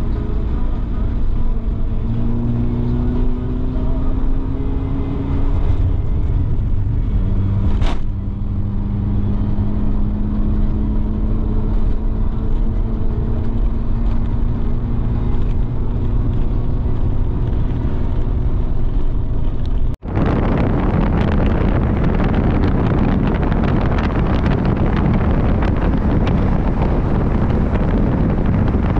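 Steady hum of a running vehicle, its pitch drifting slowly up and down. It breaks off suddenly about two-thirds of the way in and gives way to a loud, even rushing noise.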